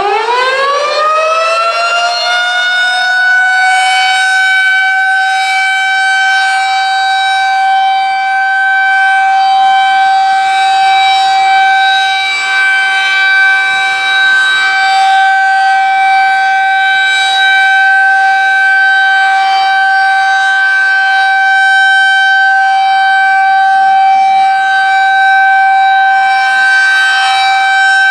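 Federal Signal 2001-SRN single-tone rotating electromechanical warning siren winding up, its pitch rising steeply over the first few seconds, then holding one steady tone as a steady alert signal. The head turns at about 2.5 RPM, so the loudness swells and dips slightly as the horn sweeps past.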